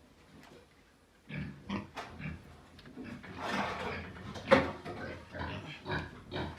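Pigs grunting in short, irregular calls that start about a second in, with a louder call near the middle.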